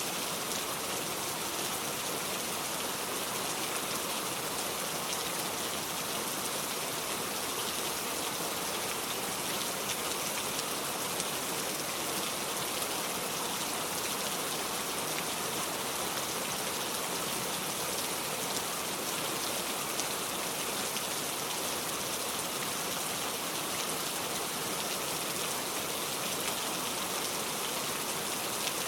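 Heavy rain falling steadily, a dense even hiss with scattered drop impacts.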